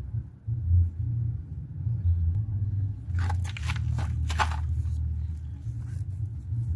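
A cloth rag being swished and squeezed in a basin of soapy water: two short wet swishes about three and four seconds in. A steady low rumble runs underneath.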